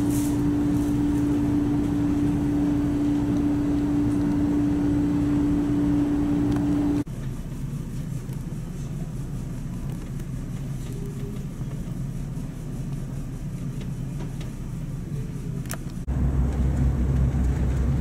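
Steady low hum of a large ferry's engines and machinery, heard inside the ship. A steady mid-pitched tone rides on it for about the first seven seconds; then the hum drops quieter, and about sixteen seconds in it comes back louder and deeper.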